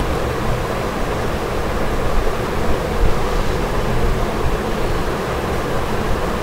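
Steady rushing background noise with no speech, strongest in the low and middle range and unchanging throughout, with a faint low hum under it.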